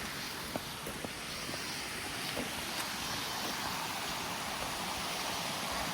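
Steady rushing of running water from a stream, with a few faint clicks over it.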